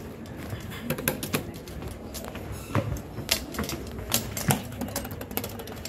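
Footsteps on a hard tiled floor: irregular sharp taps and clicks over a low steady background hum.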